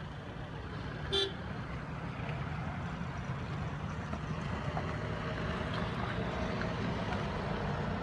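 A single short vehicle horn toot about a second in, over a steady background rumble and hiss of outdoor air and distant traffic.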